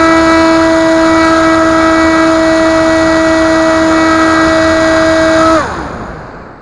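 Bixler RC glider's electric motor and pusher propeller running at full throttle, a loud steady whine with a strong pitched tone, picked up by an onboard camera right beside the prop. About five and a half seconds in the motor is cut: the whine drops quickly in pitch and fades as the propeller winds down, leaving the rush of air.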